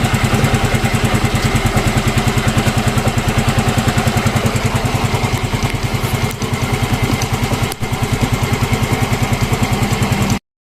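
Yamaha Mio M3 scooter's 125 cc single-cylinder engine idling with an even, steady beat, freshly fitted with a new camshaft bearing and running without the rough noise it had before. The sound cuts off suddenly just before the end.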